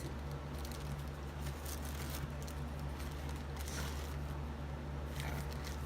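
Faint rustling and light clicks of a camera lens and its plastic packaging being handled, over a steady low hum.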